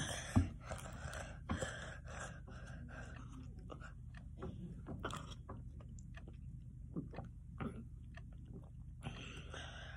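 Mouth sounds of someone eating ice cream off a plastic spoon: chewing and smacking clicks, with sharp breaths in the first few seconds and again near the end, as the ice cream cools a tongue burning from extremely spicy candy.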